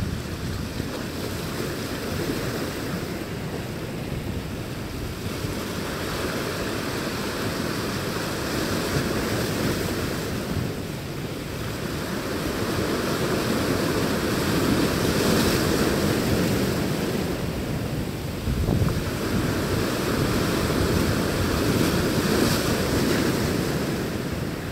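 Ocean surf washing in and breaking over the boulders of a rock jetty, swelling in several long surges of foaming water, with wind buffeting the microphone.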